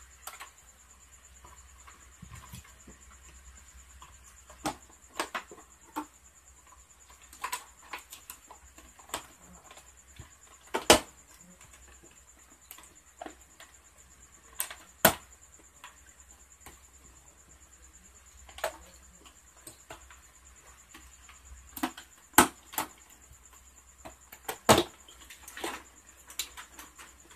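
Irregular sharp plastic clicks and knocks, spaced a second to a few seconds apart, as an LED TV's plastic back cover is pried along its edges and handled and its clips snap loose.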